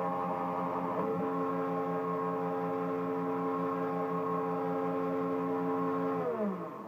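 Taig CNC milling machine's spindle running steadily with a pitched whine and a fast low pulsing while its small end mill works in a brass block. Near the end the spindle spins down, its pitch falling away as it stops.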